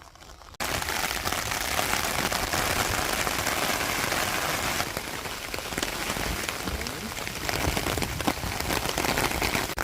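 Heavy rain falling, a dense steady hiss that starts abruptly about half a second in.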